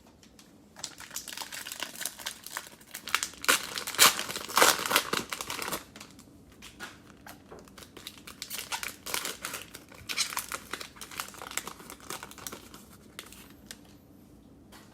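Cellophane wrapper of a trading-card cello pack crinkling as it is torn open and peeled off the cards. There are two bouts of dense crackling, the first loudest about four to five seconds in and the second fading out near the end.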